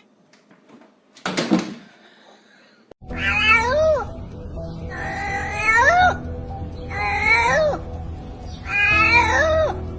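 A cat meowing four times, about two seconds apart, each meow rising and then falling in pitch, over background music. About a second in there is a short harsh noisy burst.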